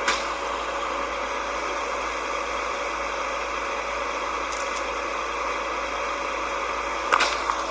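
A heavy vehicle's engine running steadily, with a sharp knock right at the start and another about seven seconds in.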